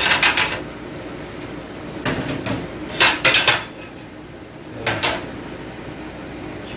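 Cooking pans and utensils clattering in four short bursts of knocks and scrapes, as a pan is moved and another set out on the stove.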